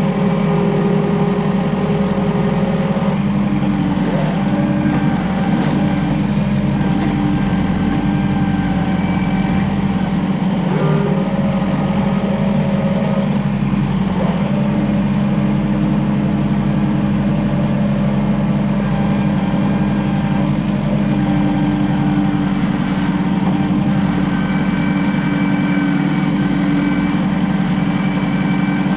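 A vehicle engine running steadily, with slight shifts in pitch about three seconds in and again around eleven to fourteen seconds in.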